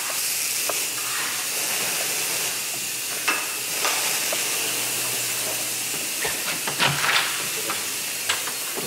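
Total-release insect fogger (bug bomb) hissing steadily as it sprays out its insecticide fog, with a few short knocks along the way.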